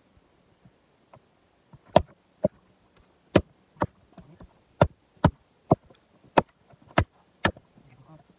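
Splitting maul striking rounds of jarrah on a stump, splitting them into firewood: a run of sharp, hard knocks, about ten over five seconds, starting about two seconds in.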